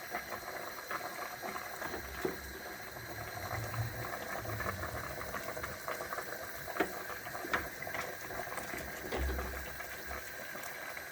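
A pot of fish boiling steadily on the stove, with a few light clicks now and then.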